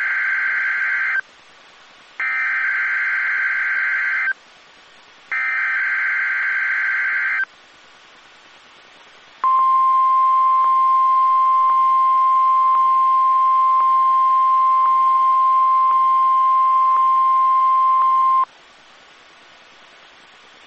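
NOAA Weather Radio test signal. Three raspy, buzzing bursts of SAME digital header data, each about two seconds long with a one-second gap between them, are followed after a short pause by the steady 1050 Hz warning alarm tone. The tone holds for about nine seconds and cuts off abruptly.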